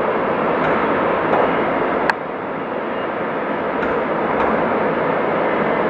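Steady rushing background noise with a few faint ticks and one sharper click about two seconds in.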